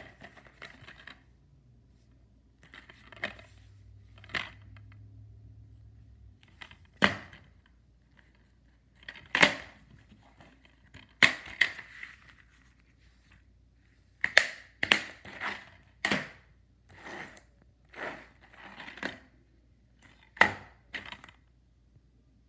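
Plastic DVD cases being handled, opened and shut: a string of sharp, irregular clicks and snaps with short rustles between them.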